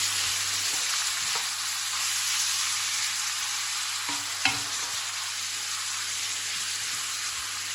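Chopped onions sizzling steadily as they fry in hot oil in a pan, with a single sharp knock about four and a half seconds in.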